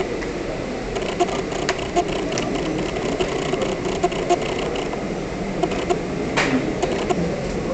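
Steady whir of an electric pedestal fan under a faint murmur of voices, with scattered small clicks and a short rustle about six seconds in.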